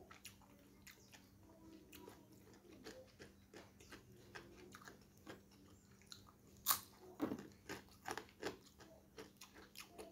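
Close-up mouth sounds of chewing. A little past the middle comes one loud crunch as a piece of crispy fried gereh eyek (salted fish) is bitten, then crunchy chewing.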